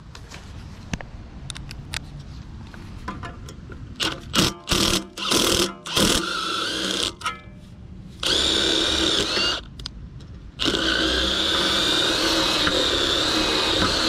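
Cordless drill boring into the metal hub of a seized condenser fan blade: a few short bursts, then two long runs with the motor whine wavering as the bit bites. The drilling heats the hub to break it free of the motor shaft.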